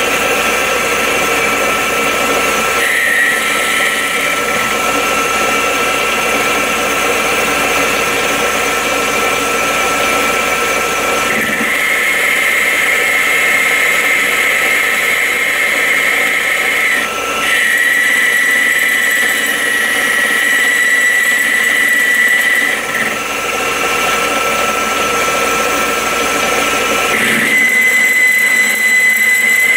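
Metal lathe running, a steady mechanical whir, while it bores out a bearing seat. A thin high whistle comes and goes in stretches of several seconds, with two brief dips in the second half.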